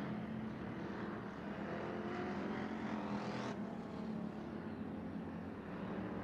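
Hobby stock race cars' V8 engines running on track in a steady drone, with one engine revving up into a rising whine that stops abruptly about three and a half seconds in.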